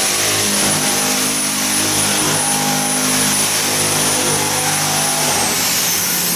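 Steady machine drone with a thin high whine that falls in pitch about five seconds in.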